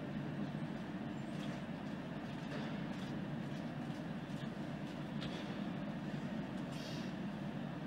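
Steady low rumble of ice arena background noise, with a few faint clicks.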